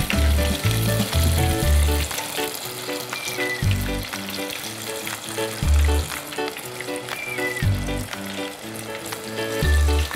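Tapioca-flour-coated chicken pieces deep frying in hot oil in a small pot, sizzling steadily. Background music with a pulsing bass line plays under it.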